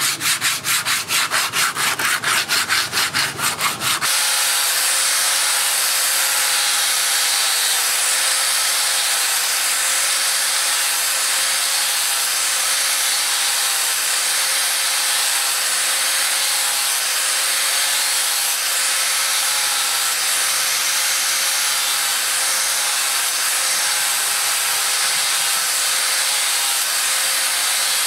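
Sandpaper rubbed by hand along a wooden axe handle in rapid rhythmic strokes. About four seconds in it gives way to an electric angle grinder running steadily with a sanding disc against the steel axe head: a continuous scraping hiss over a faint motor whine.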